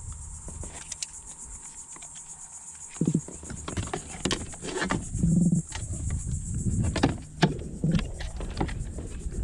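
Black drum held out of the water drumming: low, throbbing croaks in short bursts, starting about three seconds in and coming again every second or two, with a few light clicks and knocks from the fish being handled.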